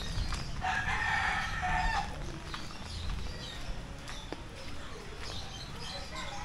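A rooster crows once, about half a second in, holding one call for about a second and a half over a low background rumble.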